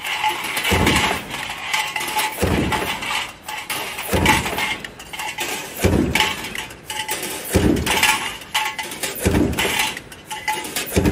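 Stamping presses on an automatic metal junction box production line, cycling with a low stroke about every 1.7 seconds and metal parts clinking and clattering between strokes.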